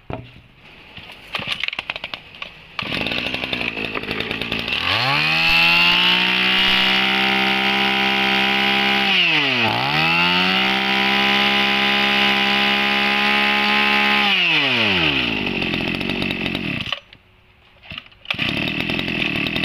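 Small two-stroke brush cutter engine, a Tanaka TBC-22H, starting about three seconds in and revving up to a high, steady full-throttle whine. The throttle is let off and opened again once, about halfway through. It then winds down and cuts out about a second before some fainter noise near the end.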